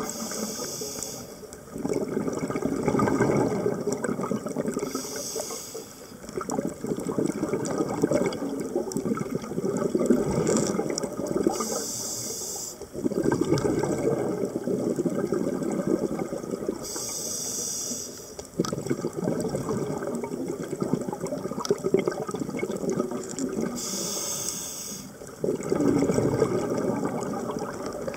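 Scuba diver breathing through an open-circuit regulator underwater: a short hissing inhale about every six seconds, each followed by several seconds of bubbling exhalation.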